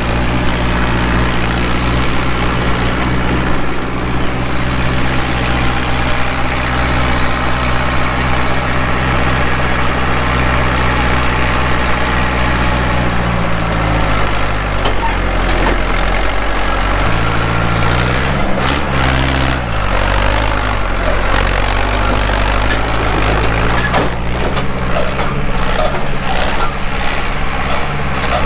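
Tractor engine running steadily while driving a bale feeder that unrolls a silage bale. The engine note shifts and wavers about halfway through, and a few knocks come later.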